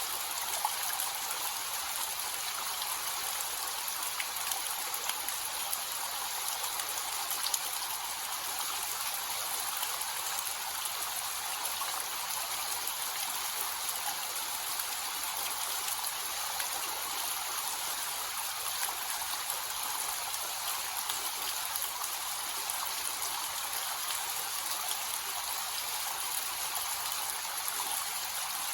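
Small waterfall with a light flow, water splashing and trickling in a steady hiss with small scattered drips.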